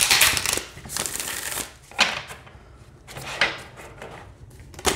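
A deck of 52 oracle cards being riffle-shuffled on a wooden table: several quick fluttering riffles of the cards interleaving, with short pauses between them. The cards riffle smoothly, none sticking.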